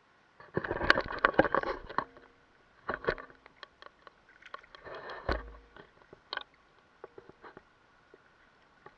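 Water splashing and sloshing in several short bursts as a snook is handled at the surface and released, with sharp clicks and knocks mixed in.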